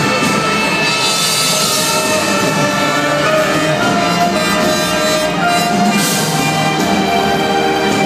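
Live band playing loudly on stage, with long held notes over a full accompaniment.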